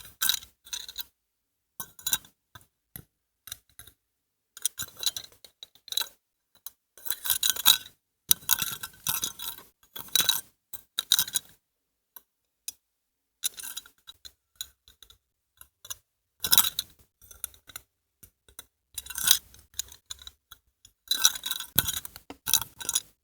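Bangles on a woman's wrist clinking and jingling as the hand is shaken, in short bursts with silent pauses between them. There is one longer run of jingling about a third of the way in.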